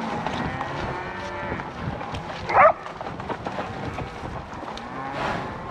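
A herd of cattle mooing and bawling, several long calls overlapping one another. About two and a half seconds in there is one short, loud, sharp call that sweeps up and down in pitch.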